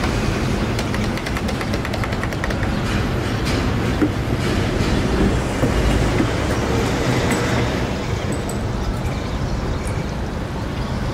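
Steady low rumbling vehicle noise, with a quick run of sharp clicks about one to three seconds in.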